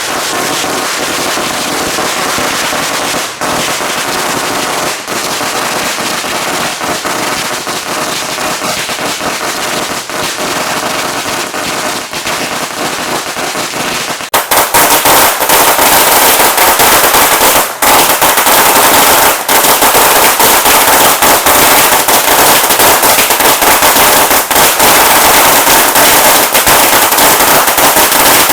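Consumer fireworks going off in a rapid, continuous string of crackling pops, like firecrackers, getting much louder about halfway through.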